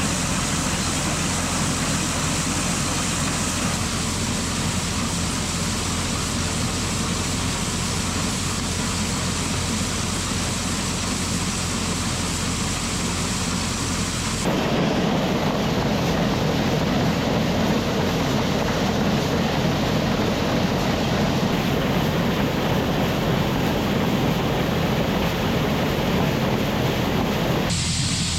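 Heavy farm machinery running steadily, a continuous engine drone with a low hum. The sound changes abruptly about halfway through, becoming fuller in the low and middle range, and changes again near the end.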